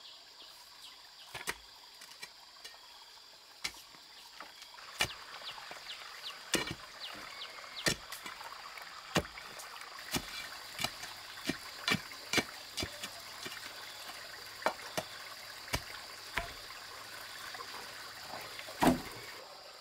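Irregular thuds and knocks of a pole jabbing into packed soil under a plank end, about one every second, over a steady high insect buzz; a louder knock near the end as the plank is settled.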